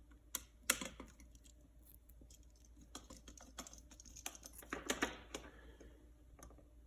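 Scattered light clicks and taps of hand tools and electrical wire being handled while wiring an outlet. There are a few sharper clicks in the first second and a busier run of small clicks from about three to five and a half seconds in.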